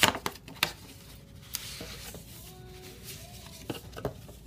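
Stiff paper envelope and card stock being handled: a few sharp rustles and taps, with a longer rustle about a second and a half in.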